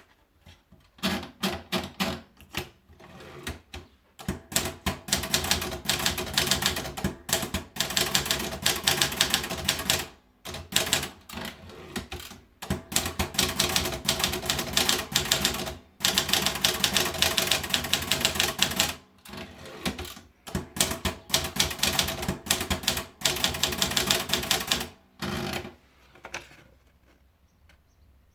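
Erika 50/60 manual portable typewriter being typed on: fast runs of keystrokes clacking, with short breaks between runs. The typing stops about 26 seconds in.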